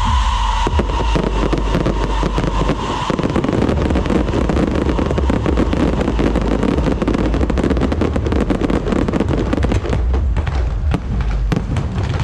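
Fireworks going off: a held high whistling tone for the first three seconds, then dense, rapid crackling from many small bursts over a low rumble.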